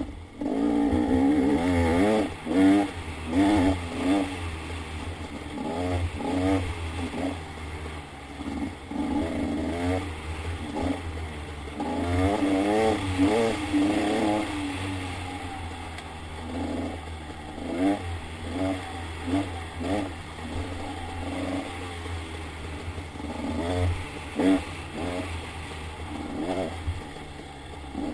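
Dirt bike engine revving up and down over and over, its pitch rising and falling quickly with the throttle. The revving is busiest near the start and again about halfway through.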